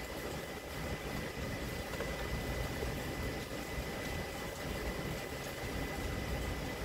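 Steady hiss and low rumble of air conditioning ventilation, with a faint steady high whine running through it.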